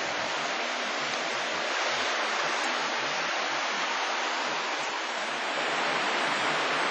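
Steady rush of running water, an even hiss with no distinct events.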